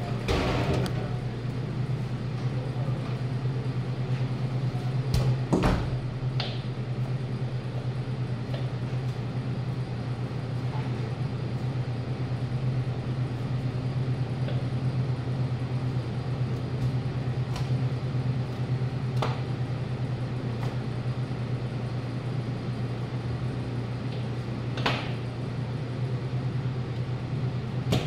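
Steady low machine hum from equipment in a butcher's cutting room. A few scattered light clicks and knocks come from knife work as a boning knife trims a beef top sirloin on the cutting board, with one near the end as the knife is set down.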